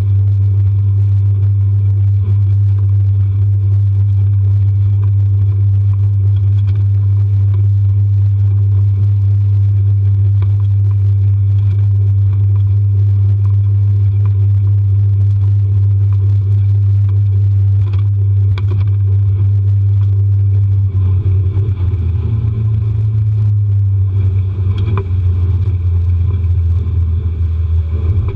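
Mercury 80 hp outboard motor running steadily, pushing a rigid inflatable boat under way: a loud, even low drone. About three-quarters of the way through, the drone wavers and shifts a little in pitch.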